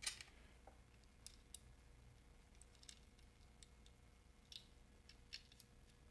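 Near silence, broken by one sharp click at the very start and faint, scattered clicks and light taps, as small transmission parts and tools are handled on the bench.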